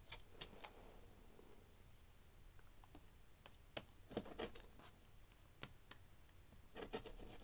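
Faint, scattered clicks and light scraping from a Fiskars rotary cutter rolling through four layers of T-shirt knit along a plastic ruler on a cutting mat. The clicks bunch together about four seconds in and again near the end.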